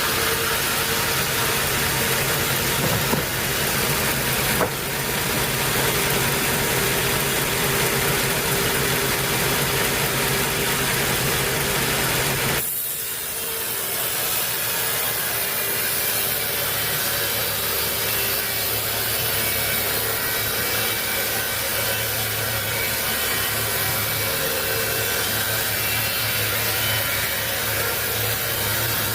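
Sawmill saw running and cutting through a teak log, a steady mechanical noise over a low motor hum. The noise dips briefly a little before halfway, then carries on.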